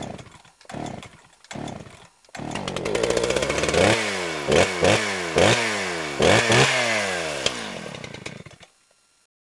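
Chainsaw engine: three short sputtering bursts, then it starts and runs, revved up several times with the pitch falling away after each rev, and fades out near the end.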